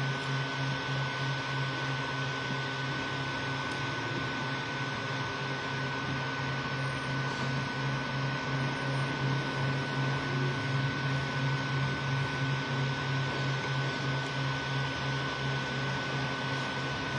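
Creality Ender 3 V2 3D printer running a print: a low, pulsing hum from its stepper motors as the print head and bed move, over the steady rush of its cooling fans, with a thin steady high whine throughout.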